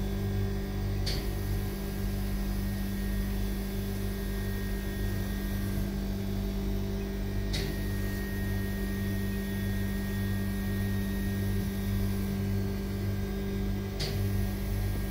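Steady deep machine hum with a constant tone, like mains-powered equipment running. Three short, sharp clicks come about a second in, midway and near the end, as the chamber's touchscreen control panel is tapped.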